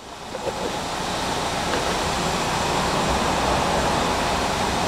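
A steady rushing noise that swells in over about the first second and then holds level.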